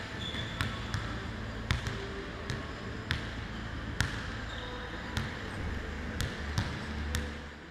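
Basketball bouncing on an indoor court floor as it is dribbled: irregular sharp bounces over a low hum, fading out near the end.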